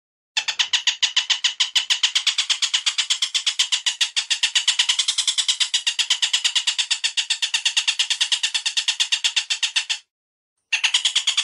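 A bird's rapid, even chattering call, a fast run of sharp high notes at about nine a second, played from a bird-training recording. It breaks off cleanly about ten seconds in and starts again shortly after.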